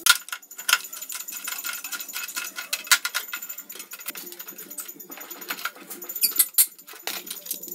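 Hand tools working on the rusty metal of a Honda Super Cub's rear end: irregular metal clicks, taps and scrapes, with a few louder knocks.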